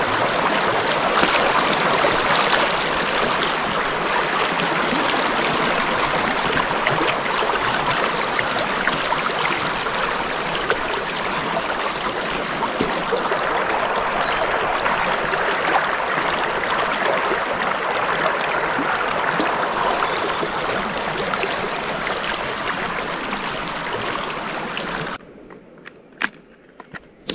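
Steady rushing of flowing stream water that cuts off suddenly near the end, followed by a few faint clicks.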